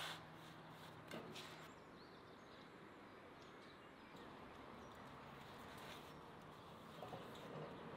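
Near silence: a faint steady background hiss, with a low hum that stops about a second and a half in and a few soft clicks near the start and near the end.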